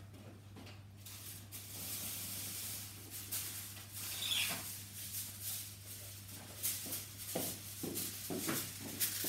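Rustling and crackling with light knocks, from someone rummaging for a bag out of view. One brief squeak comes about four seconds in, over a steady low hum.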